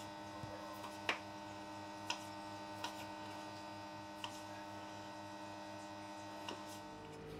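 Kitchen knife slicing cherry tomatoes on a wooden chopping board: a handful of light, irregular taps of the blade on the board, the loudest about a second in, over a steady electrical hum.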